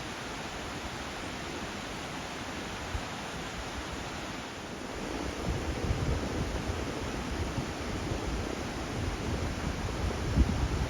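Steady rush of river water spilling below a dam. In the second half, wind buffets the microphone in low gusts.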